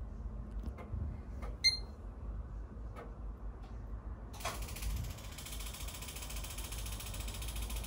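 Desktop PC restarting: a low steady hum with a few faint clicks, a single short high beep about two seconds in, then a steady high hissing whir from about halfway through that cuts off abruptly at the end.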